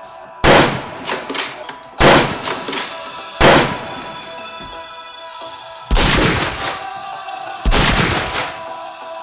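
Background music with five loud, sudden gunshot-like bangs, spaced one to two seconds apart, each trailing off briefly.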